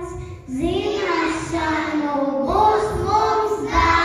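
Child singing a song into a hand-held microphone, in long held notes that step up and down in pitch.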